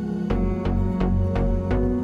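Background music: held ambient tones, then a steady beat with heavy bass coming in about a third of a second in, at about three beats a second.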